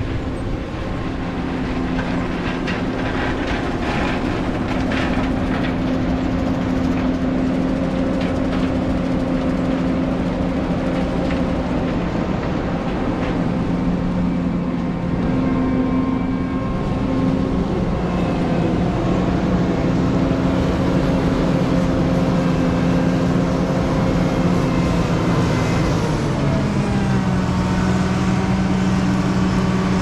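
A steady mechanical drone with two held low tones over a noisy rumble; the tones shift slightly partway through and step up in pitch near the end.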